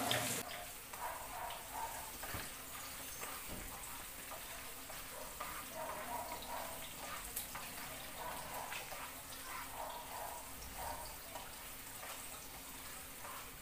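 Onion and garlic frying softly in a pan, with a spatula and fork scraping and stirring them and a couple of light knocks on the pan.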